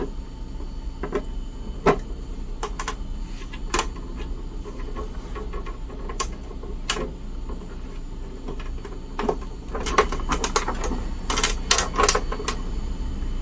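A scattered series of sharp clicks and light knocks, coming in quick clusters near the end, over a faint steady low hum.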